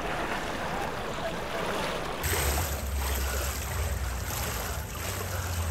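Swimming-pool ambience: a steady wash of water noise, with a low hum coming in about two seconds in.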